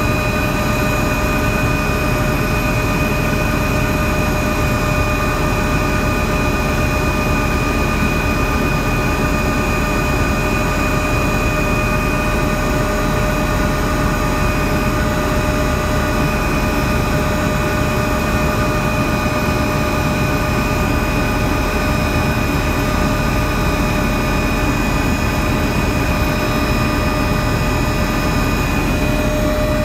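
Helicopter in steady flight: the turbine's constant high whine over the even rush of engine and rotor noise, with no change in pitch.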